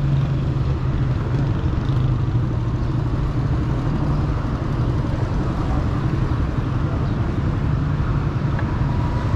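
Street traffic noise: cars running along the road beside the walkway, a steady low hum with no distinct events.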